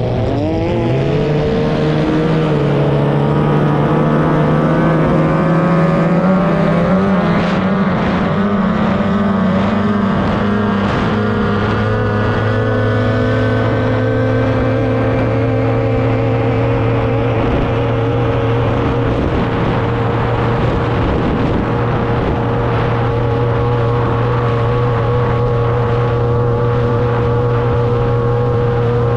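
A 30 hp two-cylinder outboard engine on a tunnel-hull racing powerboat running flat out, heard from on board. Its pitch dips and climbs again just after the start, wavers for a while, then holds steady at full speed.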